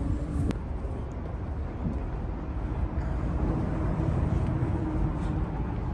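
Steady low rumble of vehicle noise with a faint engine hum, and a sharp click about half a second in.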